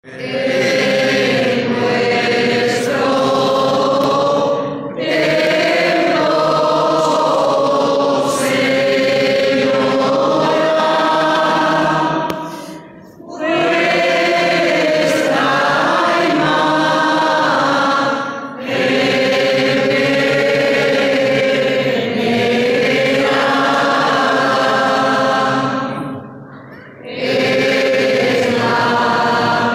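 A congregation of many voices singing a hymn together in long held phrases, with short breaks between phrases, the longest about a third of the way in.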